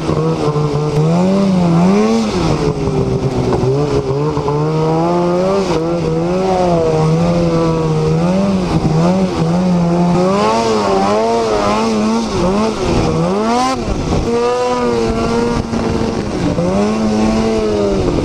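Snowmobile engine running under way, its pitch rising and falling again and again as the throttle is opened and eased off.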